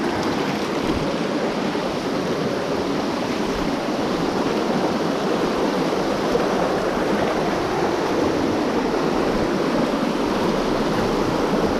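Steady rushing of a small trout creek's water.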